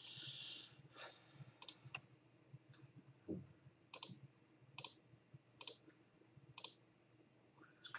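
Faint, sharp clicks of a computer mouse, roughly one a second, over near-silent room tone.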